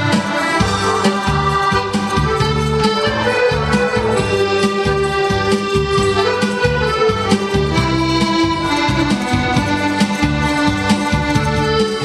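Piano accordion playing a melody of held notes over a steady pulsing bass rhythm.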